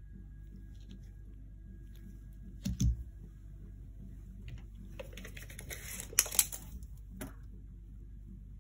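A thud as the small all-metal RC car is set down on a wooden table, then about two seconds of rattling and scraping with two sharp clicks as a steel tape measure is pulled out and laid beside it.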